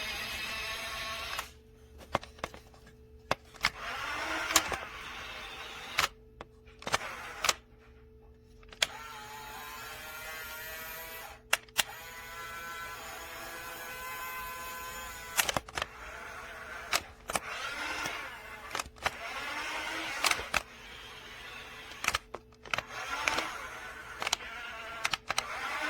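Small electric motors of a toy RC dump truck whirring in spells of a few seconds, some rising in pitch as they start, with sharp plastic clicks and knocks between them.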